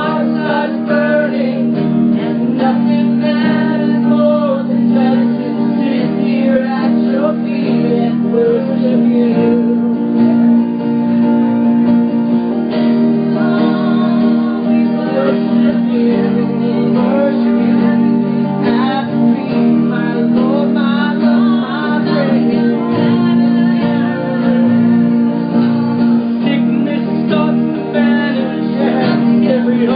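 Acoustic guitars strumming while people sing a worship song together, with a woman's voice standing out.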